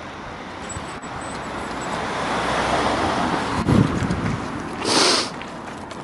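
Outdoor rushing noise that swells through the middle and fades again, with wind buffeting the microphone a little past halfway and a short burst of hiss about a second before the end.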